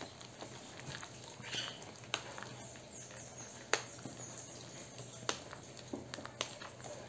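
Wire whisk mashing bananas in a plastic bowl: soft squishing with irregular clicks of the wires against the bowl, the loudest a little under four seconds in.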